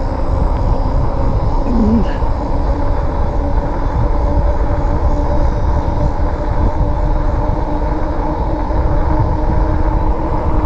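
Riding noise of a RadRover fat-tire electric bike moving steadily on a paved trail: a strong low rumble of wind on the microphone and tyres on asphalt, with the hub motor's steady whine running underneath.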